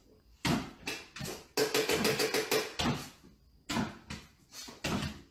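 A run of irregular knocks and clatters, with a dense stretch of quick rattling in the middle.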